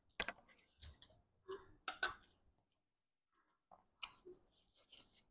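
Faint eating sounds: scattered short clicks and smacks of someone chewing food, with a pause of about a second in the middle.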